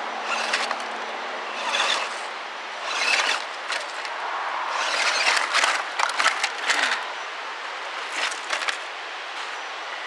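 Radio-controlled Axial SCX10 Deadbolt rock crawler whining and scrabbling up a rocky slope, its tires clawing and scraping over rock, roots and dry pine needles in repeated short spurts. About halfway through it rolls over and tumbles, with a cluster of clattering cracks and crunches.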